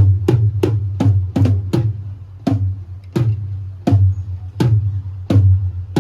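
A single deep drum struck over and over for a sound check, each hit ringing with a low boom: about three hits a second, slowing to roughly one every 0.7 s about two seconds in.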